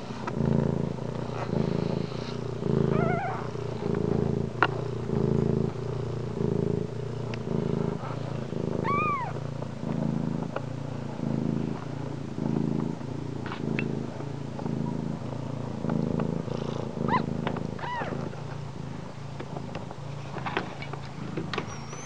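Mother cat purring steadily close up while nursing her newborn kittens, a low rhythmic purr of about three pulses every two seconds. A few brief high thin mews from the newborn kittens come through, about three seconds in, around nine seconds and twice near the end.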